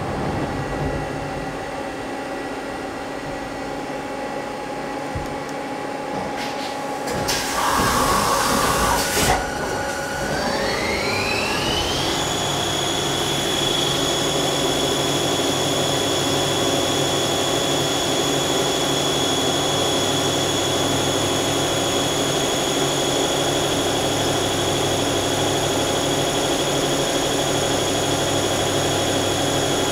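Mazak CNC lathe starting its program: a steady machine hum, then a loud rushing burst of about two seconds, then the spindle spins up with a whine rising in pitch and holds steady at about 2000 rpm, with coolant running.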